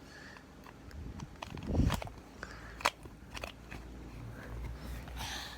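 Plastic Rubik's cube being twisted by hand: irregular clicks and clacks of the layers turning, with short scraping rasps between them.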